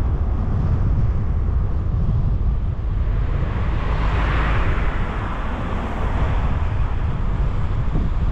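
Steady tyre and wind noise from a Tesla Model Y Long Range electric car driving on the road, a low rumble with no engine note. A hiss swells and fades about four seconds in.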